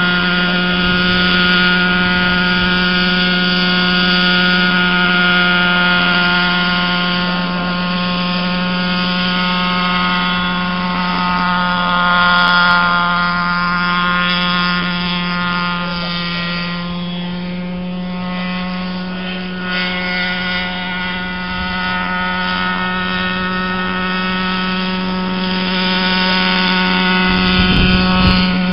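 Radio-controlled model helicopter hovering: a steady, high-pitched whine of its motor and rotor with a strong low hum beneath, holding one pitch. It grows louder near the end.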